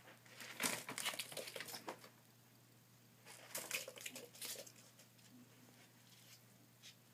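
Kittens scratching and scrabbling in loose cat litter and about the pen, making two bursts of crinkly, scratchy rustling about a second in and again around four seconds.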